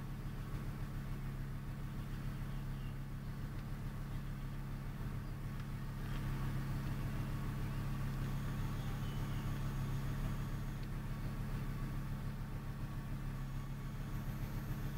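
An engine idling steadily: a low, even hum with a fine regular pulse.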